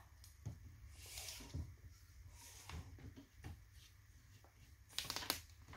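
Faint handling sounds of a steel tape measure being pulled out and laid along a pine board: a brief rasp about a second in, scattered light taps, and a short cluster of sharper clicks near the end.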